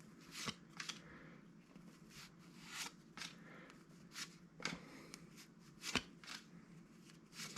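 1985 Topps baseball cards being flipped through by hand, the card stock sliding and flicking against itself in a string of faint, quick swishes.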